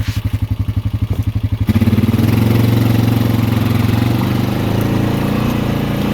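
Four-wheeler (ATV) engine idling with a rapid, even pulsing beat, then the throttle opens about a second and a half in and it runs louder and steady as the machine moves off.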